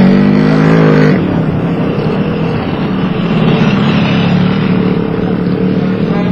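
Motocross motorcycles racing off the start: one strong engine note wavers and holds for about a second, then many engines blend into a dense, steady drone.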